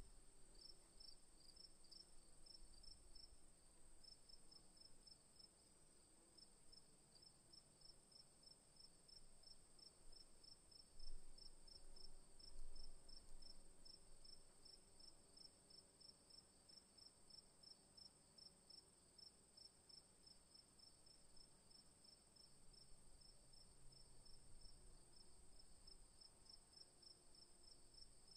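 Faint cricket chirping: an even, steady run of short high chirps, a few each second, over a thin steady high tone. Two soft bumps come about halfway through.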